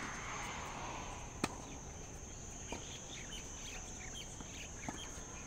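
Tennis rally: three sharp pops of the ball off racket strings and the hard court, about a second and a half apart, the first the loudest. A faint wash of distant crowd cheering near the start and a steady high thin whine run beneath.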